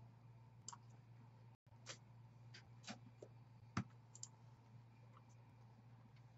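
Faint, scattered clicks and light knocks from a computer mouse and a keyboard being handled and pulled across a desk, the loudest knock a little under four seconds in, over a steady low hum.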